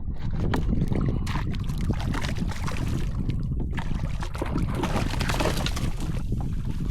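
Water splashing and lapping against a kayak hull, with many short light splashes and knocks over a steady low rumble.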